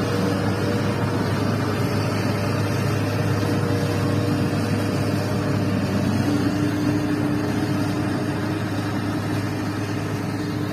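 Heavy diesel engine running steadily at idle with a constant low hum.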